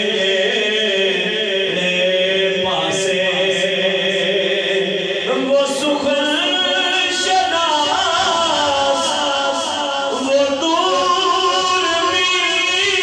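A man singing a naat, an Urdu devotional poem, unaccompanied, in long drawn-out wavering notes, the melody stepping up in pitch about five seconds in and again near the end.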